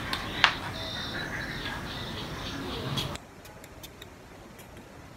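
Handling sounds: scattered light clicks and a soft rustle as a headscarf is adjusted close to the microphone, over faint room noise that drops quieter about three seconds in.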